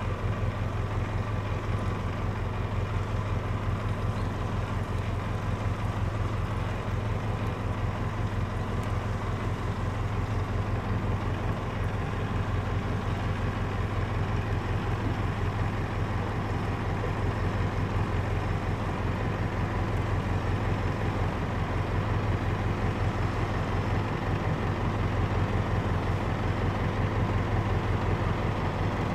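An engine running steadily at idle, a constant low hum with a fine even pulse.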